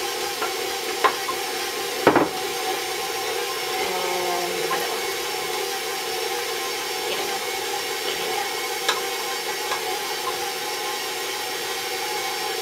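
Electric stand mixer running steadily on low speed, its beater turning through thick brownie batter with melted butter just added. A sharp knock about two seconds in.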